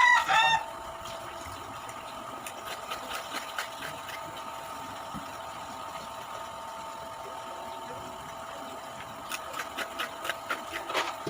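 Crisp crunching of raw jicama being bitten and chewed, heard as clusters of sharp clicks a few seconds in and again near the end. Under it runs a steady mechanical hum, and a short wavering pitched call sounds right at the start.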